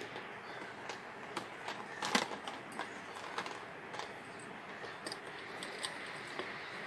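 Light scattered clicks and taps of an oil pastel being handled and rubbed on paper, over a steady faint hiss; the sharpest tap comes about two seconds in.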